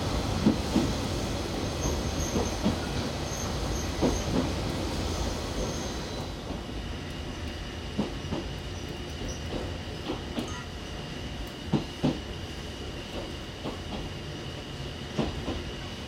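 A Toyama Chihō Railway electric train rolling along the line, heard from inside the carriage. A steady rumble of wheels on track is broken every few seconds by clicks as the wheels cross rail joints, some in quick pairs. About six seconds in, the rumble eases a little and a thin, high, steady whine comes in.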